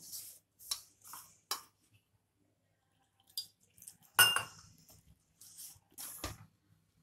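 Hands kneading wheat-flour dough in a stainless steel bowl: short rubbing and scraping strokes against the steel, then a loud clang of the bowl that rings on about four seconds in, and another knock near the end.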